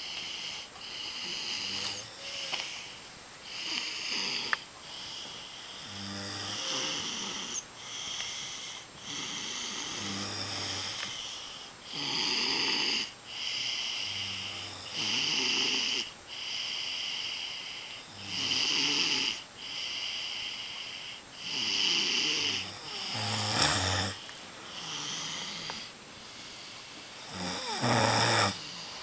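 Two people, a father and daughter, snoring together: a deep, low snore about every four seconds alongside higher, more frequent wheezy breaths, the loudest snores coming near the end.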